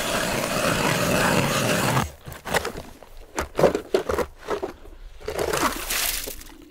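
Hand-cranked ice auger drilling through lake ice. A steady grinding scrape of the blades cutting breaks off about two seconds in into shorter, uneven scraping and crunching strokes as the auger is turned and lifted from the hole.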